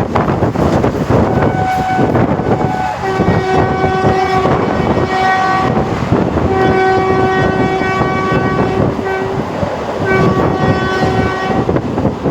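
Train horn sounding in three long, multi-note blasts over the steady running noise of a moving train. The first blast starts about a second in, with short breaks near the middle and towards the end.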